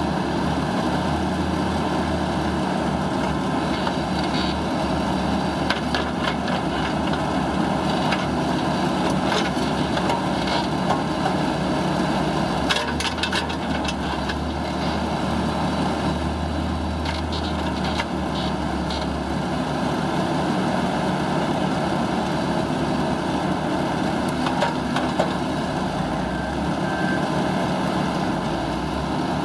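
2007 Ditch Witch XT1600 crawler loader's engine running steadily while its hydraulics work the backhoe boom and bucket. The low rumble grows louder a few times, with scattered light clicks and clanks from the attachment.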